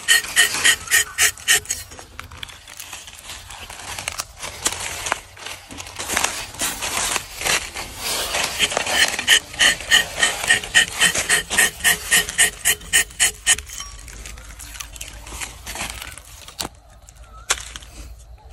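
Rubber-tapping knife shaving a groove into rubber tree bark in quick rasping strokes, about four a second, in two runs, the second starting about six seconds in and stopping near the middle. A single sharp click near the end.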